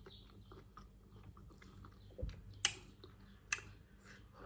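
Person eating: faint chewing and mouth sounds with scattered small clicks. There is a low thump a little after two seconds, and two sharper clicks come soon after.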